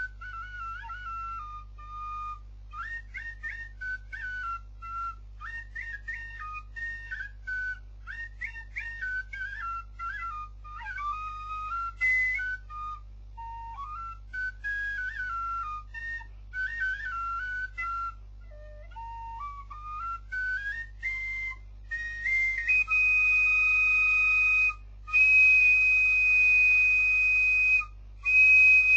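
Small wooden flute playing an improvised march tune solo: quick stepping phrases of short notes and a rising run, then about two-thirds in, long, loud, shrill held high notes broken by short gaps.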